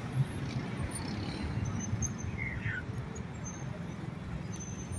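Steady low rumble of city street traffic, with one short high chirp a little past halfway.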